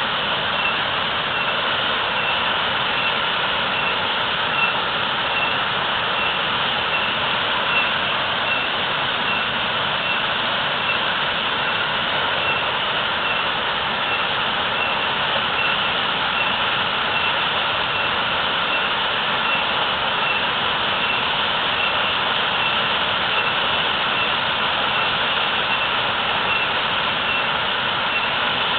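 Waterfall pouring heavily: a steady, even rush of water. A faint high pulse repeats evenly above it.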